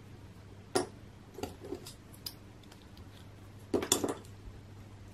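Small plastic Playmobil figure parts clicking and tapping against each other as they are handled and pressed together: a scattering of short clicks, loudest in a quick cluster about four seconds in.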